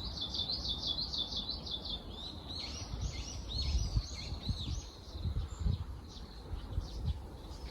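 Wild bird calling: a quick run of high, evenly repeated notes for about the first two seconds, then a looser string of varied chirps. A low outdoor rumble with a few soft thumps sits underneath.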